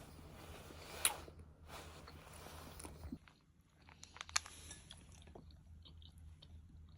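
A person chewing and biting food close to the microphone, with scattered crunches and sharp clicks; the sharpest are about a second in and again near four and a half seconds.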